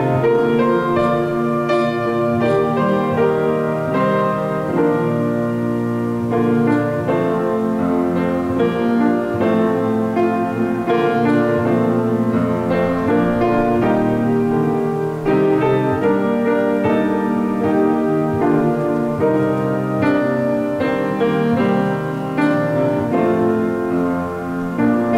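Piano playing a continuous instrumental piece, with many notes sustained and overlapping.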